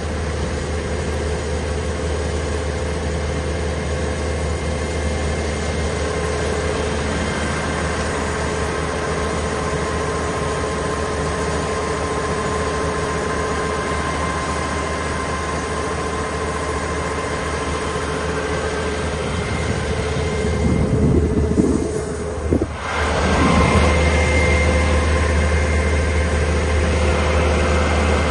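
Kubota WR575 combine harvester's diesel engine running steadily. About three quarters of the way through, the sound briefly shifts and dips, then carries on a little louder.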